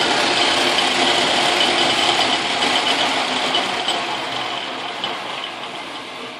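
Logan metal lathe, its motor on a variable-frequency drive, running with a steady mechanical drone and whine, then slowing down as the drive ramps the motor down. The sound fades over the last two seconds or so.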